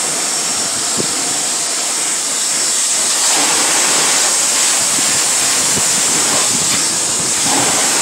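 Power washer jet spraying water against a car's interior door trim and seat, a loud, steady hiss.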